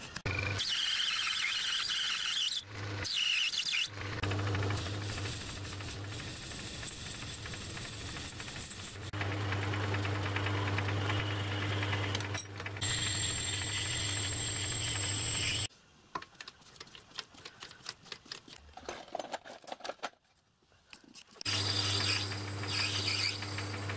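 Metal lathe running while drilling and turning a brass bush, with a steady motor hum under a high cutting hiss and squeal. It runs in several short stretches, and past the middle drops to a quieter spell of light clicks before running again near the end.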